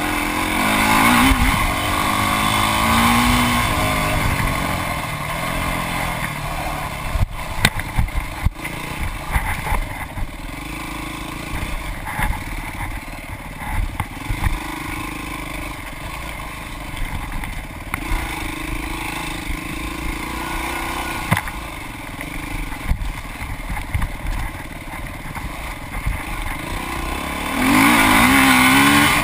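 Dirt bike engine being ridden hard, heard from a handlebar-mounted camera, revving up in pitch about a second in and again near the end, and running lower and choppier in between. Sharp knocks and rattles come through as the bike bounces over rough trail.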